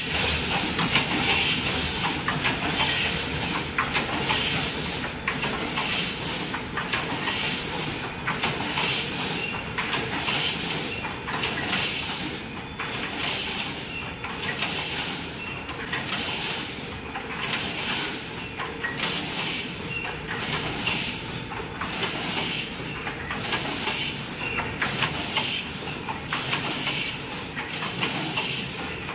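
Automatic bag packing machine running, with a sharp hiss repeating at an even pace, a little faster than once a second, over a steady mechanical clatter.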